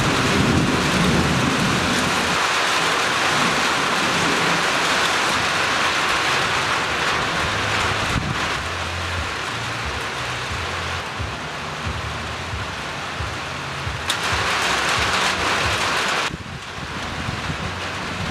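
Heavy rain falling steadily in a thunderstorm, with low rolling thunder rumbling at the start and again about halfway through. The rain drops off sharply about two seconds before the end.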